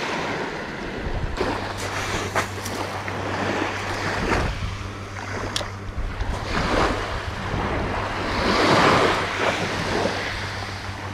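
Sea waves washing on the shore, surging and easing, with wind on the microphone. A few sharp clicks and a low steady hum lie underneath.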